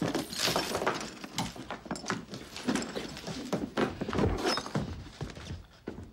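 A sudden burst of clattering knocks and bangs that goes on irregularly, as of hard objects being knocked about and handled.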